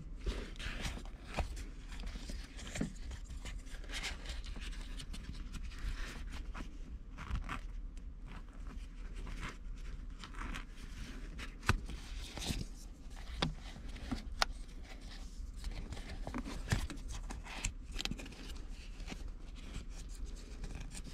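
A new leather shift boot being handled and fitted onto its frame by hand: irregular rubbing and creasing of leather with scattered small clicks and taps.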